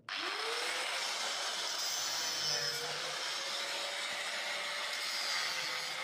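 Handheld angle grinder with a cutting disc starting up, its whine rising quickly and then running steadily while it cuts off the excess length of the door lock's through-bolts.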